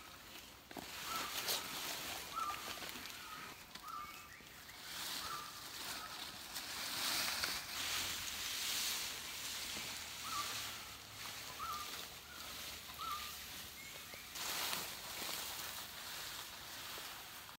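Dry coconut palm fronds dragged over dry leaf litter: a rustling scrape that swells and fades. A bird repeats a short call note in two runs, early on and again after the middle.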